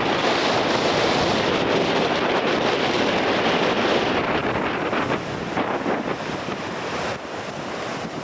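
Surf crashing and washing over a rocky shore in a strong wind, with wind buffeting the microphone. The wash is loudest for the first four seconds or so, then eases.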